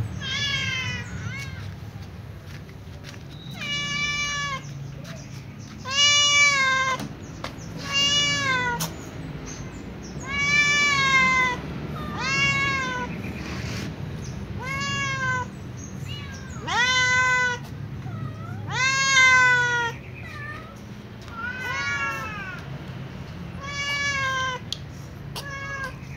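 A domestic cat meowing over and over: more than a dozen meows, each under a second long and rising then falling in pitch, coming a second or two apart.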